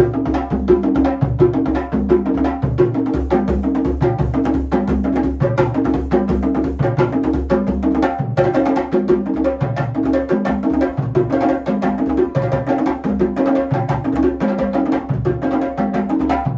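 Lively drum and percussion music for the dance: a steady, repeating drum pattern under rapid, sharp percussive strikes.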